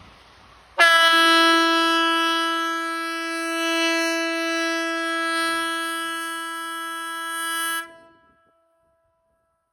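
Hesa Fredrik civil defense warning siren sounding one loud, steady tone at a single pitch for about seven seconds, starting abruptly about a second in and cutting off with a short echo: one blast of the 'important message to the public' (VMA) warning signal.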